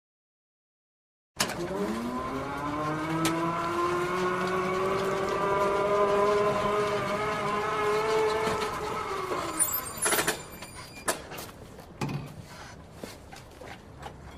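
An engine note that rises in pitch over about two seconds, holds steady for several seconds, then falls away, followed by a few sharp knocks.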